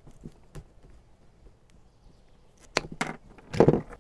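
Small side cutters snipping through the 10-gauge green ground wire of an RV power cord: a few faint handling clicks, then two sharp clicks nearly three seconds in. A louder, duller knock follows just before the end as the hand tools are swapped.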